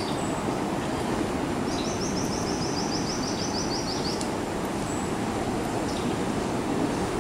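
Steady outdoor rushing noise with a high, rapid trill of short notes, about six a second, from about two seconds in to about four seconds in, and a couple of brief high chirps.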